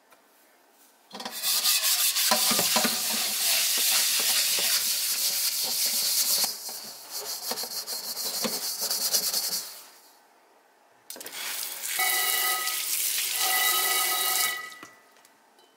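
A stainless steel scrubber rasping rapidly back and forth against a carbon steel wok in soapy water, scouring off the factory manufacturing oil; it starts about a second in and runs for about nine seconds. After a short pause, running water pours onto the wok, which rings with several steady tones until it stops near the end.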